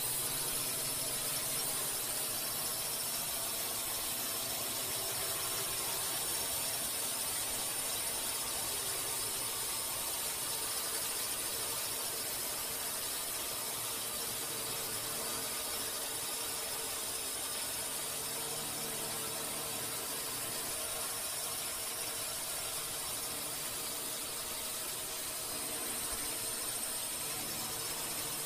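Steady hiss with a thin high-pitched whine running over it, unchanging and without any bangs or impacts.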